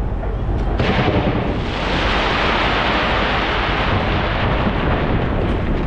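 Fireworks going off from the Taipei 101 skyscraper: a continuous low rumble of bursts with dense crackling that swells about two seconds in.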